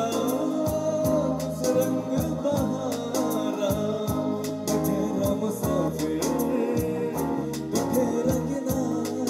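Music: a song with singing over a bass guitar line and a regular drum beat.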